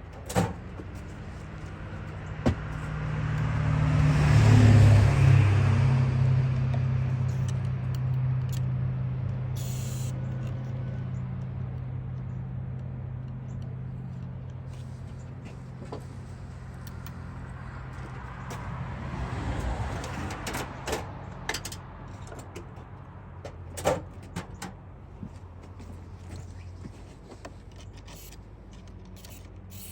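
A motor vehicle passing by: its engine hum and tyre noise swell to a peak about four seconds in, then fade slowly. A second, quieter pass comes near the two-thirds mark. Sharp clicks and taps of hand tools are scattered throughout.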